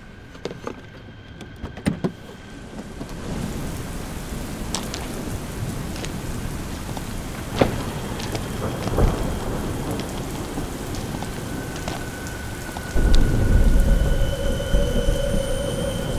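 Steady rain falling, building up over the first few seconds, with a sudden deep rumble of thunder about three-quarters of the way through. A few sharp clicks sound near the start.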